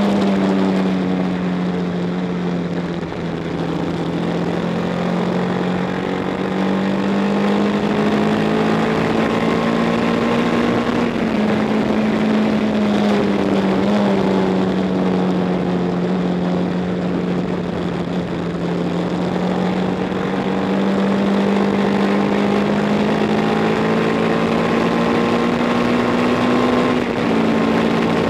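1962 Matchless G50 single-cylinder racing engine heard from on board at racing speed, its note sinking and climbing several times as the rider works the throttle through the bends, with wind rush over the bike.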